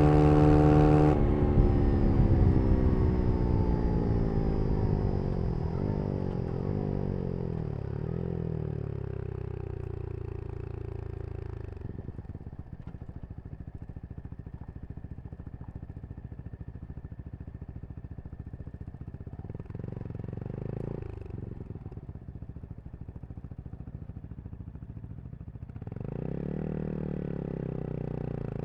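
Brixton Crossfire 125 XS motorcycle engine running at high revs, then the throttle closes about a second in and the revs fall steadily for about ten seconds as the bike coasts. It then runs at low revs with one short blip of throttle about two-thirds through, and the revs climb again shortly before the end.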